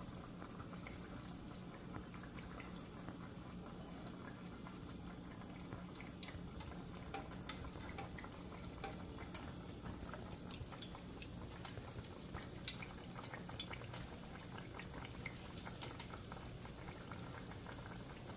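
Eggs, sausage and onion frying in butter and oil in a pan, sizzling faintly with scattered small pops and crackles, over a steady low hum.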